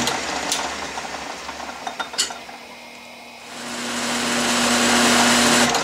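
Atlas/Craftsman 12-inch metal lathe running through a final turning pass on soft aluminum, with a few sharp clicks in the first couple of seconds. Its steady hum dips to a lull in the middle, then builds back up and drops off again near the end.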